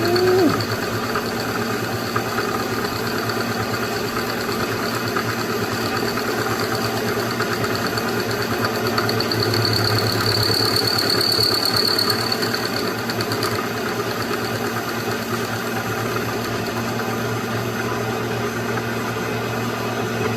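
Bridgeport milling machine running steadily while milling clearance off a block, with a constant low motor hum and a high whine that grows stronger for a few seconds in the middle.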